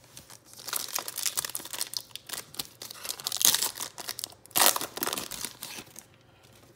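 Foil wrapper of a Donruss Optic basketball card pack crinkling and tearing as it is ripped open by hand. There are two louder rips, about three and a half and four and a half seconds in.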